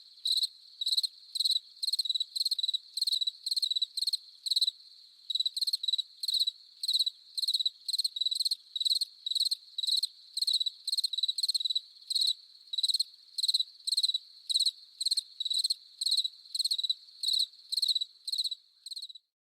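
A single cricket chirping close up, about two chirps a second at a steady rhythm, with a faint cricket chorus behind it. The chirping stops just before the end.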